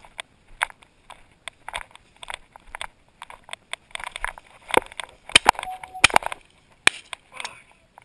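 Footsteps crunching through dry grass and brush at a steady walking pace, about two steps a second, growing louder and busier about halfway through, with a few sharp snaps of stems.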